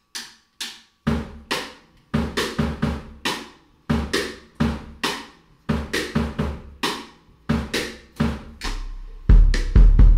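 Opening of an acoustic folk-dance song: banjo and drum kit with bass drum and snare playing a rhythmic groove, a few sparse strokes at first, filling in about a second in. A deep, sustained low note joins near the end.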